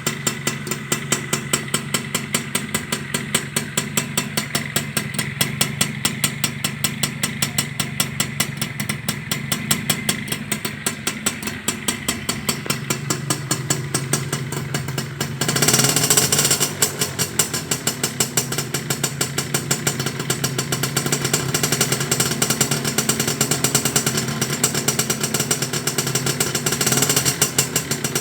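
Yamaha Sigma two-stroke motorcycle engine idling with an even pulsing beat, blipped once briefly about halfway through before settling back to idle.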